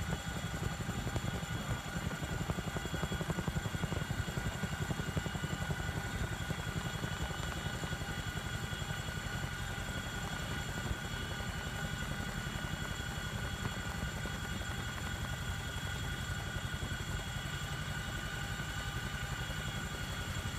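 Helicopter in flight heard from on board: a fast, steady rotor beat low down with a constant high whine over it.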